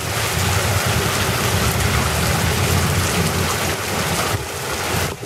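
Heavy rain pouring down onto a flooded street, a dense steady hiss with a low rumble beneath. It cuts off suddenly at the end.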